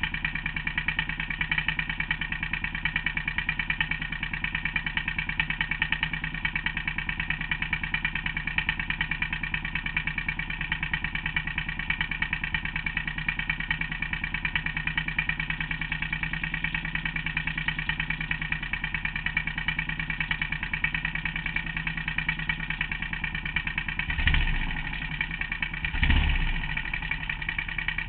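Motorcycle engine idling steadily with a fast, even pulse. Near the end it gives two brief blips of the throttle, a couple of seconds apart, before settling back to idle.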